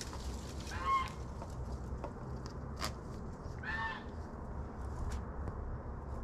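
Farm poultry calling twice, two short calls about three seconds apart, with a few light clicks in between.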